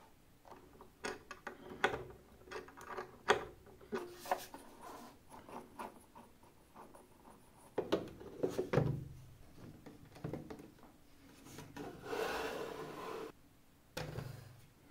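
Hands handling a plastic RC speedboat and its parts: scattered clicks and small knocks as the flex shaft and propeller are refitted, then a louder clatter as the canopy hatch is pressed onto the hull. A brief rub follows, then a single knock near the end.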